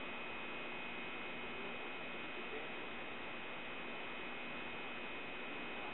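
Steady background hiss with a faint electrical hum: room tone.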